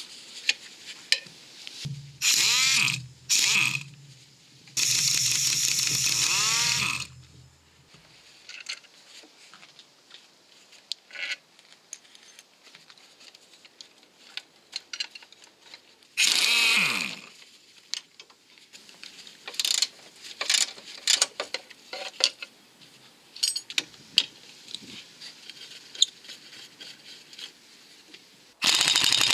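A power tool running in several short bursts, its pitch rising and falling, as it undoes the bolts of the right-hand engine mounting. Between the bursts come scattered metal clicks and knocks of tools on the mount.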